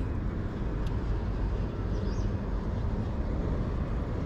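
Steady low outdoor rumble, like wind on the microphone or distant traffic. A single click comes about a second in and a short high chirp about two seconds in.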